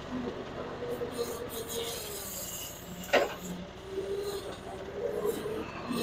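Engine of a FLAND FL45 mini articulating wheel loader running as the machine drives in turning loops, with a wavering whine over the engine and one sharp clank about three seconds in.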